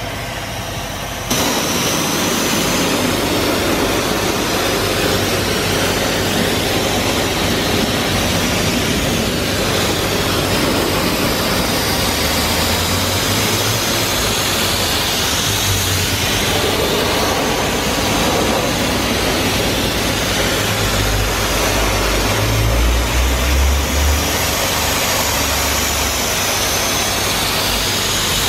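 Self-service car wash pressure wand rinsing a gloss black wheel and tyre: a steady, loud hiss of high-pressure spray that starts abruptly about a second in. A deeper rumble comes and goes in the second half.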